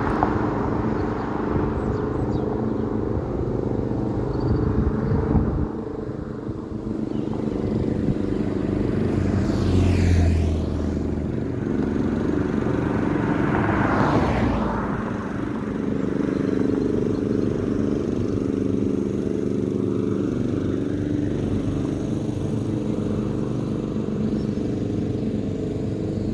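Two cars pass close by on the road, about ten and fourteen seconds in, each swelling and then falling away; the second is a Shimano neutral-service car carrying spare bikes on its roof. A steady low hum runs underneath.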